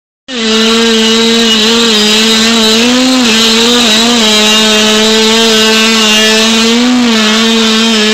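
85cc two-stroke dirt bike engine held at high revs, a steady high-pitched buzz with small rises and dips in pitch. The bike is bogging in deep mud with its rear wheel spinning. The sound cuts in a moment after the start.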